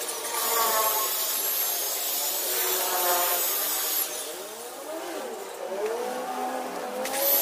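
Electric rotary car polisher running with its pad on car body paint, a high motor whine over a wavering lower hum. The whine stops about four seconds in and starts again near the end.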